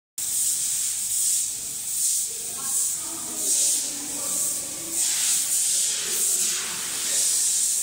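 A loud high hiss that swells and fades roughly once a second, with faint pitched sounds underneath for a couple of seconds near the middle.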